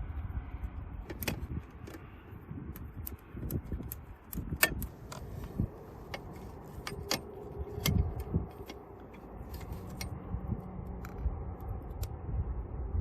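Irregular light metallic clicks and clinks, of tools or small metal parts being handled, over a low rumble.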